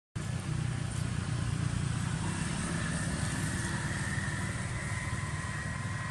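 Steady engine rumble of motor traffic on a nearby road, with a thin high whine coming in about two seconds in.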